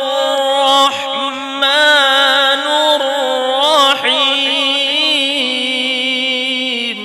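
A man's solo voice reciting the Quran in the melodic chanted style of tajweed, drawing out long ornamented notes that waver up and down in pitch, through a microphone and sound system. The phrase ends right at the close.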